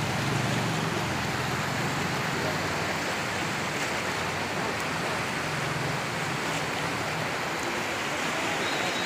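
Fast-flowing floodwater rushing along a street: a steady, unbroken rushing noise with no let-up.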